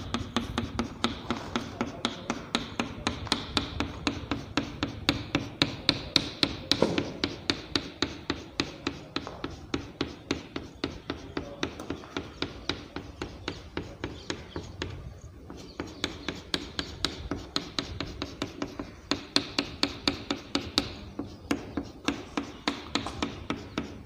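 Chalk tapping and scraping on a chalkboard in quick short strokes, about three a second, as lines are drawn and hatched, with a brief pause about halfway through.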